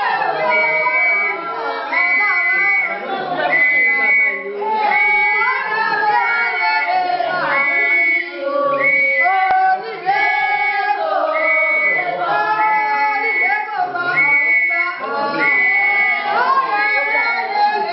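Several voices singing over music, with a short high note recurring about every second and a half.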